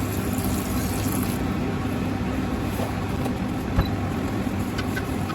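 Sautéed vegetables and white wine sizzling in a hot soup pot as the stuck-on bits deglaze. The hiss is strongest for the first second or so, then eases, over a steady low hum, with a single knock near the middle.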